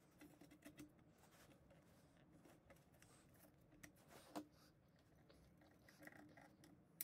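Near silence with faint clicks and light metallic taps as a hand rivet nut tool carrying a brass threaded insert is fitted into a hole in a thin sheet-metal can. The clearest tap comes about four and a half seconds in.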